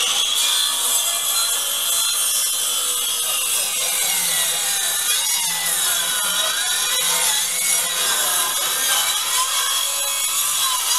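Handheld electric power saw cutting wood in one long continuous cut, its high motor whine sagging and recovering in pitch as the blade bites into the timber.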